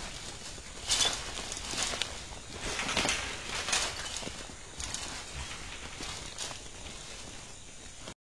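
Feral hogs running and scrambling inside a corral trap, picked up by the trap camera's microphone: a string of short, rough bursts of noise about once a second, fading and spacing out toward the end.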